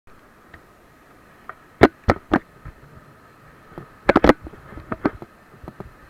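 Steady faint rush of river rapids, with a series of sharp knocks and taps: three about two seconds in, a quick cluster of three about four seconds in, and a few smaller ones after.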